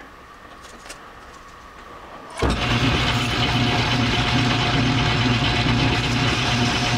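Small metal lathe switched on about two and a half seconds in, its motor and gearing then running steadily with a constant hum as the chuck spins the workpiece.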